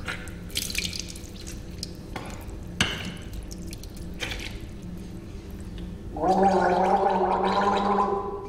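A man gargling with his head tipped back, a loud voiced gargle held on one pitch that starts about six seconds in. Before it come a few short splashes and knocks of water at the sink.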